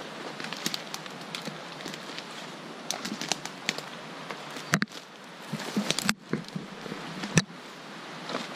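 Dry brush and twigs crackling and rustling underfoot as someone pushes through a thicket on foot, with three louder snaps in the second half.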